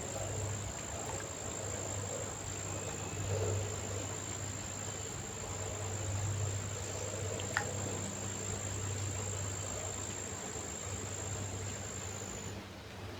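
An insect trilling in one steady, high-pitched note without a break, stopping suddenly about half a second before the end, over a faint low hum. A single sharp click about two-thirds of the way through.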